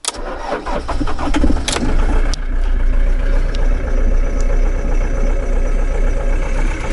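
A 2007 Citroën Jumper / Peugeot Boxer van's diesel engine is started for the first time after its alternator was refitted. It cranks for under two seconds, catches, and settles into a steady idle.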